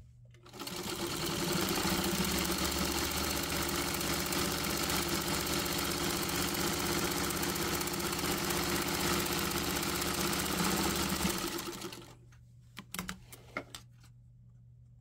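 Vintage cabinet sewing machine stitching a straight seam through cotton flannel: it speeds up over about a second, runs steadily for about ten seconds, then slows and stops. A few light clicks follow near the end.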